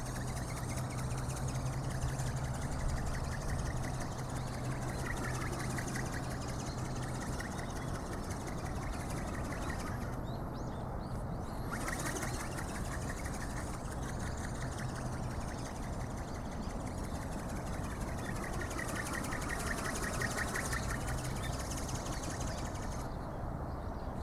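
Small battery-powered ornithopter in flight: a steady whir from its electric motor and gearbox along with its wingbeats. The tone sweeps as it passes overhead about six and twenty seconds in.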